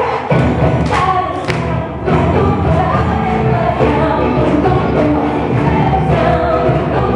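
Music with a choir singing over a heavy low beat, with a couple of sharp hits about a second in.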